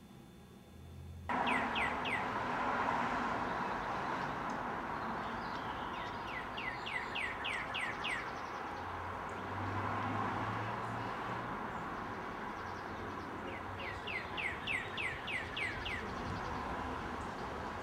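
Outdoor ambience: a steady hum of distant traffic, cutting in suddenly about a second in. Over it a bird sings three runs of quick, falling chirps: a short run at the start, then longer runs of about eight notes each around the middle and near the end.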